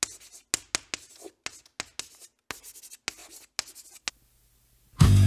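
Writing on paper: a quick run of short scratchy strokes that stops about four seconds in. About a second later, loud music with guitar and drums comes in.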